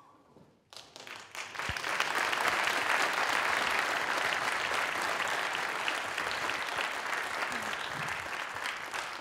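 Audience applauding: the clapping starts about a second in, swells to full strength within another second and stays steady.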